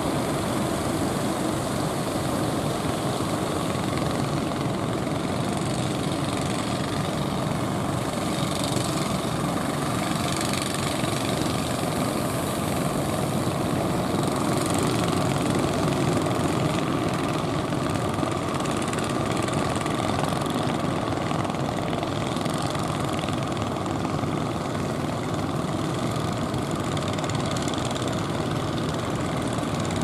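Motors of outrigger fishing boats running steadily, mixed with the noise of surf.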